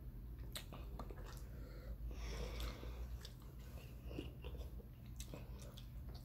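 Close-miked chewing of soft food, sweet potato and fried fish, with scattered light clicks of a metal fork against a wooden cutting board.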